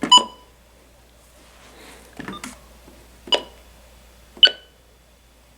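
Three short electronic beeps, each starting with a click, a second or more apart, with some faint rustling between them.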